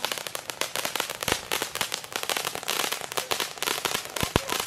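Ground fountain firework spraying sparks: a steady hiss thick with rapid crackling pops.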